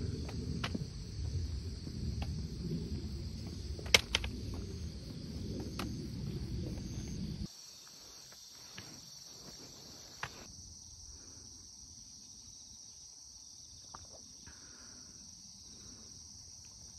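Insects chirring steadily in high-pitched continuous trills. For the first seven seconds or so a low rumble of wind on the microphone lies under them and then cuts off suddenly, with a sharp click about four seconds in.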